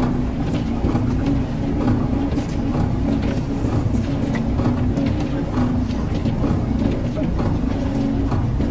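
Rolled ice cream drum machine running with a steady hum and low rumble as its frozen drum turns, with faint light ticks of a scraper against the drum.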